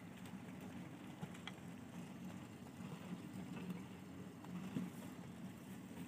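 Faint, steady low machine hum with a few small clicks over it.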